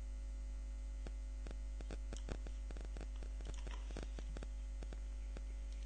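Steady electrical mains hum with faint, irregular clicks scattered through it.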